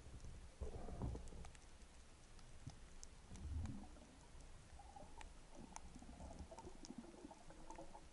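Faint underwater ambience heard through a submerged camera: low muffled rumbles of moving water with scattered small sharp clicks.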